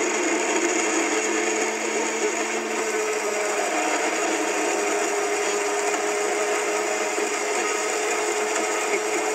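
Electric countertop blender running steadily, grinding a thick pale paste in its glass jar.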